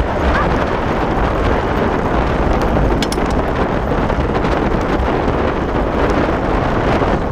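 Steady rush of wind over the microphone of a fast-moving dog-racing rig, mixed with the rumble of its wheel rolling over a dirt and grass trail.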